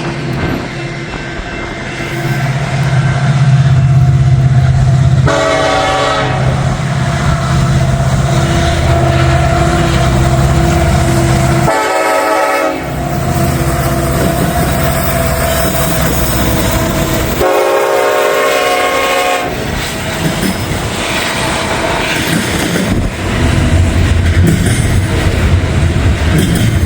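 Norfolk Southern diesel freight locomotives passing close by, engines rumbling, with the air horn sounded three times: two short blasts about six seconds apart, then a longer one of about two seconds.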